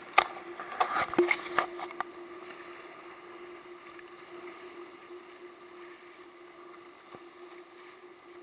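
Water slapping and splashing against the hull of a small Howmar Phantom sailboat under way in choppy water, with several sharp knocks in the first two seconds, then a steady rush of water with a constant hum underneath.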